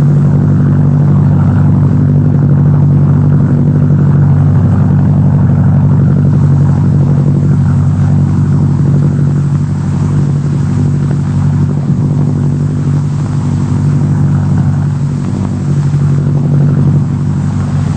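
A steady low engine drone from machinery, holding one pitch throughout and dipping briefly about fifteen seconds in.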